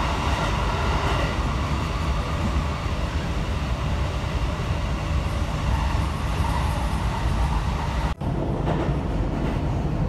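Running noise of a JR 719 series electric train heard from inside the passenger car as it travels through a tunnel: a steady, loud rumble and rush of wheels and air. The noise drops out for an instant about eight seconds in, then carries on a little lighter.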